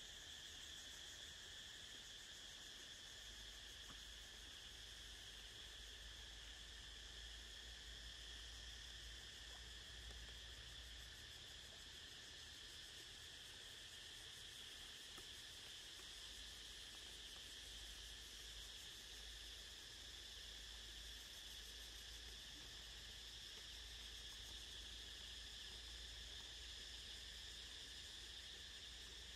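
Faint, steady insect chorus: a high shrill drone with no breaks. A low rumble comes and goes beneath it.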